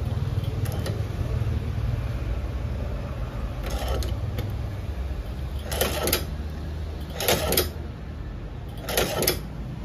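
Shoe repair sewing machine stitching a sneaker's sole: its motor hums steadily while the needle runs in four short spurts of a few stitches each, about every second and a half.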